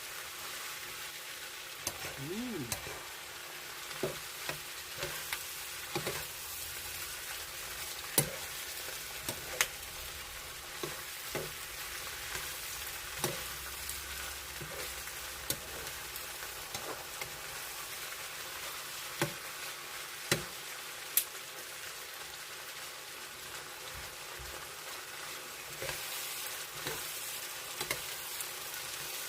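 Squash and pork stir-fry sizzling steadily in a pan while it is stirred, with sharp clinks of the spatula against the pan every few seconds.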